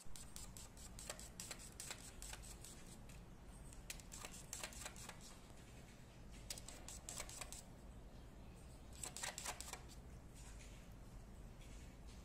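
Faint clicks and taps in small clusters of a few at a time, a cat pawing at a computer keyboard and desk, over a low steady hum.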